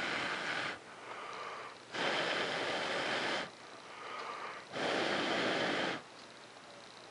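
A person breathing heavily close to the microphone: three loud breaths about two and a half seconds apart, with softer breaths between them.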